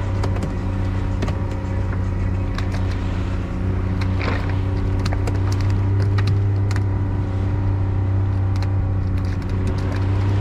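Small fishing boat's motor running steadily at an even pitch, with light ticks and knocks scattered through it.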